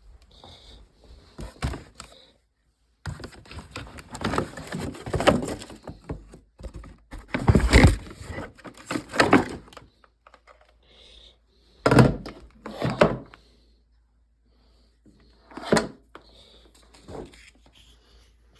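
Tools and objects being rummaged through and handled: irregular rattling and clicking, with a few heavy thunks as things are knocked or set down, loudest about 8 and 12 seconds in.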